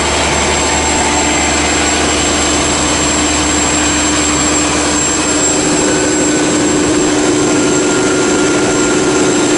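Large biogas-fuelled spark-ignition gas engine driving an electricity generator, running steadily at constant speed. The sound is loud and even, with a low hum and a steady tone under broad mechanical noise.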